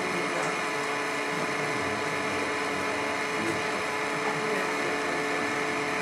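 Steady machine-like whirring hum with a few constant tones, as from a fan or pump, unchanging throughout. Faint murmuring voices lie beneath it.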